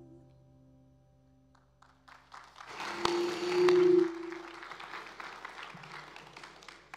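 The last chord of an acoustic band with upright bass and acoustic guitars fading out, then a congregation breaking into applause about two seconds in. A loud voice calls out briefly in a cheer about three seconds in as the clapping peaks, then the applause thins toward the end.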